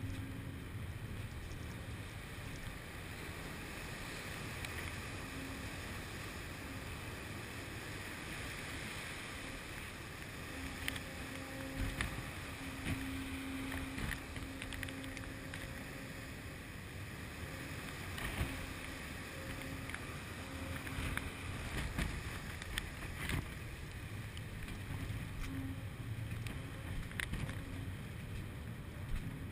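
Wind and churning sea on the open deck of the research vessel Laurence M. Gould, over the ship's steady low engine hum with a faint on-off tone, and a few sharp knocks now and then.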